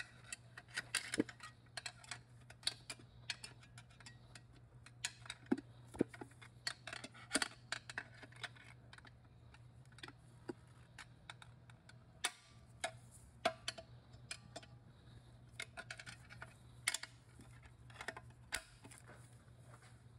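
Irregular small metallic clicks and ticks as a heavy snap ring is worked by hand into its groove above the clutch pack in a Subaru 5EAT automatic transmission case, over a faint steady low hum.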